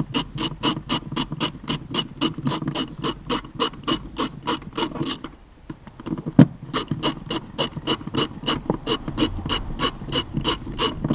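Ratchet wrench clicking steadily, about four clicks a second, as it winds in the M10 splined bolt of a seat belt's lower anchor. The clicking stops for a moment about five seconds in, with one sharp knock, then starts again.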